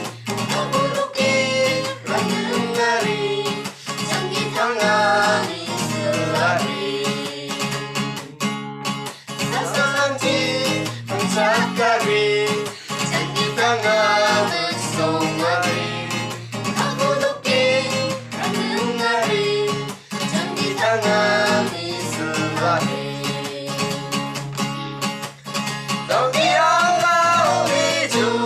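A small group of men and women singing together to a strummed acoustic guitar.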